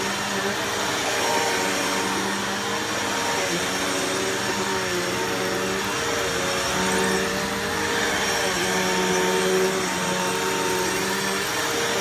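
Bissell Powerforce Bagless 6579-3 upright vacuum cleaner running steadily while vacuuming, its motor hum dipping slightly in pitch now and then.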